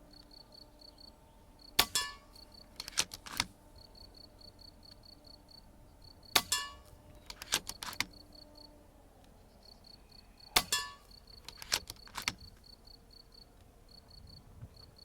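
FX Impact M3 PCP air rifle fired three times, about four and a half seconds apart, each shot a sharp crack. Each shot is followed about a second later by a few quick metallic clicks as the repeating action is cycled for the next pellet.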